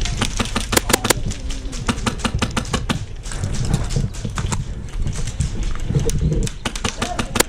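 Airsoft guns firing: sharp snapping shots, some single and some in quick strings, scattered irregularly, with a low rumble underneath.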